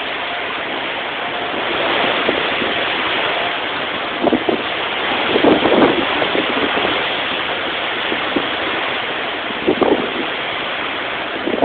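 Hurricane wind and driving rain: a steady rushing noise that swells in louder gusts about four to six seconds in and again near the end.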